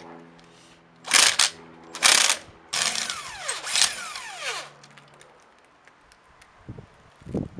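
Cordless impact wrench on the car's wheel nuts, run in three bursts: two short ones, then a longer one whose pitch falls away as the motor spins down. A few light knocks follow near the end.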